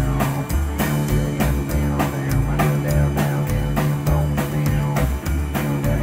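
Live boogie-woogie played on piano, upright double bass and drum kit, with a steady beat and a walking low bass line.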